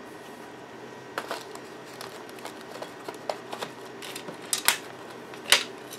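Metal drafting compass being folded and set back into its plastic case: a scatter of light clicks and taps starting about a second in, the sharpest two near the end, over a steady faint hum.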